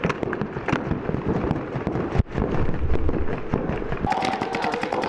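Paintball markers firing rapid, overlapping strings of shots during a speedball game, a dense crackle of sharp pops. A steady pitched tone comes in about four seconds in.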